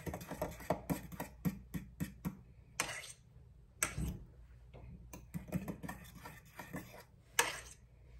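A utensil stirring salt into pureed plum tomatoes in a bowl, clicking against the bowl about four times a second, with a few louder knocks about three, four and seven seconds in.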